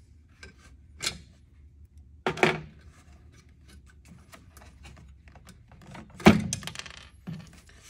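Small metal clicks of clevis and cotter pins being worked out of an aluminium bed-frame bracket, with a few knocks as the actuator and control box are handled against the frame; the loudest thunk comes about six seconds in.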